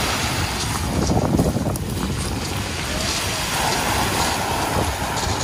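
Wind buffeting the microphone over surf breaking on a shingle beach.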